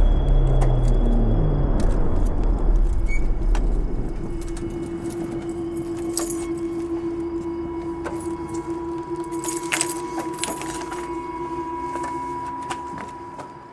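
Keys jangling and clicking around an open car door, over a low rumble that fades after the first few seconds; a steady tone sounds from about four seconds in.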